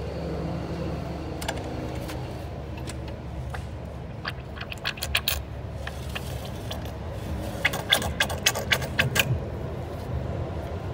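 Light metallic clicks and taps from handling the metal parts of an automatic transmission valve body, in a short flurry about four seconds in and a denser run about eight seconds in, over a steady low rumble.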